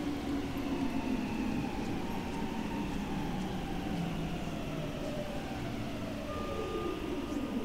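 Electric metro train slowing on arrival at an underground station, its motor whine falling steadily in pitch over a low rumble. A brief steady high tone sounds near the end.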